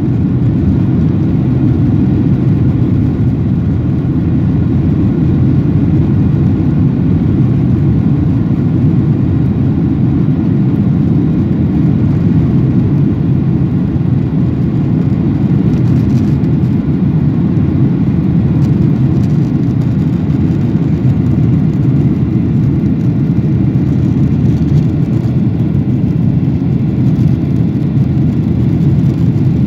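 Jetliner's turbofan engines at takeoff thrust, heard from inside the cabin: a loud, steady, deep rumble through the takeoff roll and climb-out.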